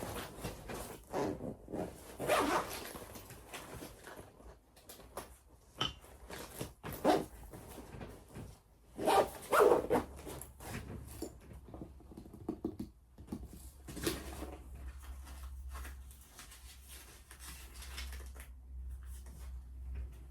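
Rummaging through a tool bag: irregular rustling, scraping and small clicks of tools and supplies being handled, loudest about halfway through. A faint low hum comes in around the middle.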